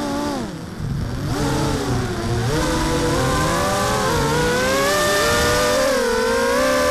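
Mini H quadcopter's T-Motor 2206 brushless motors and Gemfan 5030 two-blade props whining, heard from the onboard camera with wind hiss. The pitch drops sharply and the sound dips about half a second in as the throttle comes off. It then climbs back and settles into a higher, steadier whine from about three seconds in.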